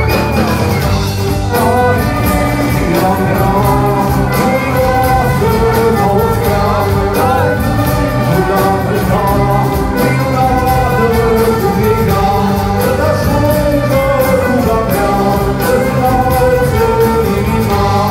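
Folk metal band playing live: drums and guitars running loud and steady, with a sung melody line over them.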